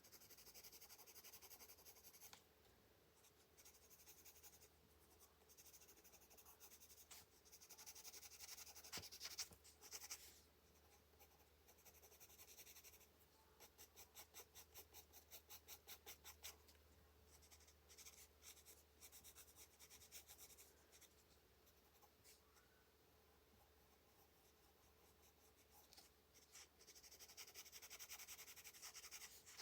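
Faint scratching of a colored pencil on paper as layers of color are shaded in. There are stretches of quick back-and-forth strokes, with the most rhythmic run about halfway through.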